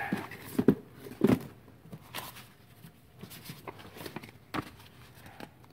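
Handling noise: a cardboard box and loose parts being moved about on a workbench, a few irregular knocks and rustles, the loudest in the first second and a half.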